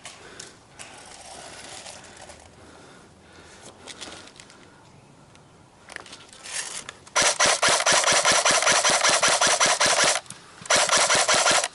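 Airsoft gun firing full-auto right beside the microphone: a rapid, even clatter in one long burst of about three seconds, then a shorter burst of about a second.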